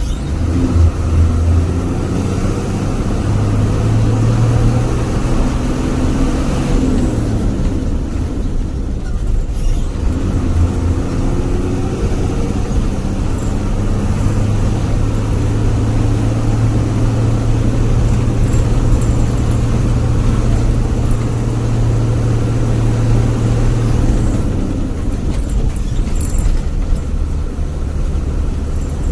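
Diesel bus engine running under way with a deep, snoring growl ("ngorok"). Its pitch climbs for a few seconds, drops around seven seconds in, then holds steady for a long stretch before easing off near the end.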